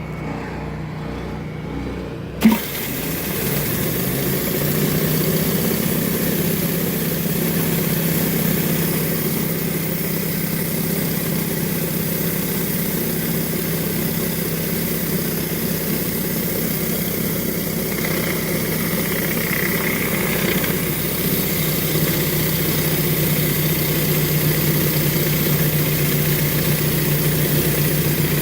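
A pressure washer's gas engine runs steadily. About two and a half seconds in there is a sharp click, and the high-pressure water spray starts hissing against concrete; the engine keeps running under load.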